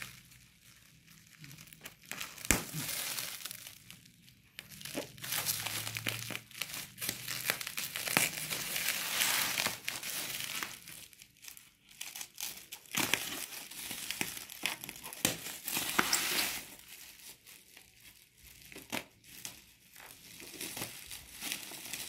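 Plastic bubble-wrap packaging crinkling and rustling as it is handled and cut open with scissors, in irregular bursts with sharp clicks and crackles and short pauses between.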